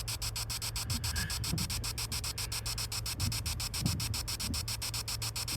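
Ghost-hunting spirit-box app sweeping through static on a phone, a rapid, even chopping hiss of about eight or nine pulses a second, with faint low fragments in it.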